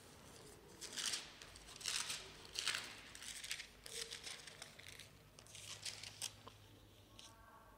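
Bible pages being turned and rustled close to the microphone: a string of soft, short paper swishes as the reader looks for a passage.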